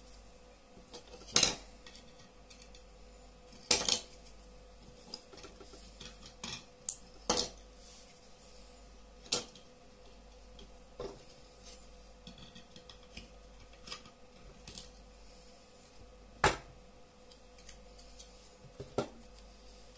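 Hand tools and small metal parts knocked and set down on a tabletop: a string of sharp, irregular clicks and clinks, the loudest about one and a half, four, seven and sixteen and a half seconds in.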